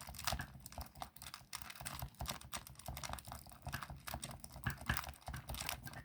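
Key being pushed into and jiggled in a wafer lock: faint, irregular small metallic clicks and scrapes.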